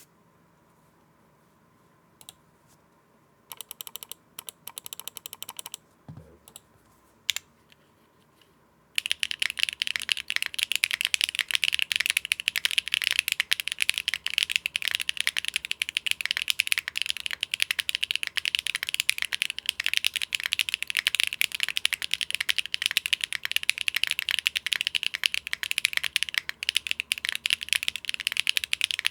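Typing on a mechanical keyboard with Akko Cilantro tactile switches, a polypropylene plate, CRP keycaps and no foam, giving a mid-to-high clack. A few scattered keystrokes and short runs come first, then fast continuous typing starts about nine seconds in.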